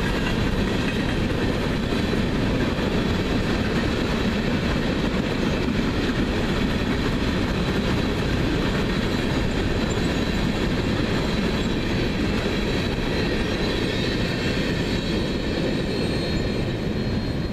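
Steel coal hopper cars of a freight train rolling past at speed: a steady heavy rumble and rattle of wheels on the rail joints, with faint high-pitched squeal from the wheels.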